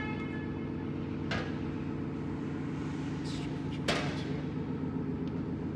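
A steady low machine hum with two short clicks, about one and a half seconds in and about four seconds in.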